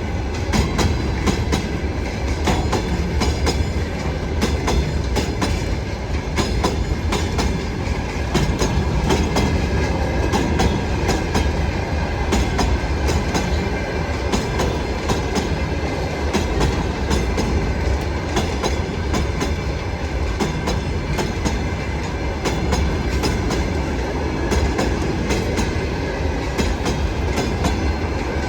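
Wheels of a VL80S electric locomotive and its freight train clattering over rail joints: a continuous run of sharp clicks over a steady low rumble.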